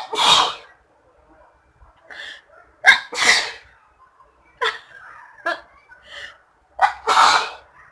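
A woman sneezing three times, about three seconds apart, with sharp sniffs and breaths between: sneezes set off by snuffing chhikni sneezing powder.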